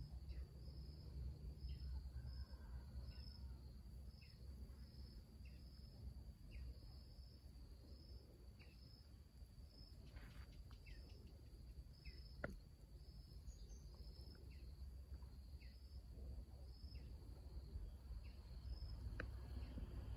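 Insect chirping in an even, high-pitched pulse, roughly three pulses every two seconds, over a low rumble. A single sharp click comes about halfway through.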